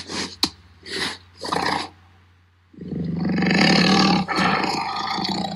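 Recorded tiger sound, as played by Google's 3D augmented-reality tiger: three short huffs in the first two seconds, then, after a brief pause, one long roar of about three seconds.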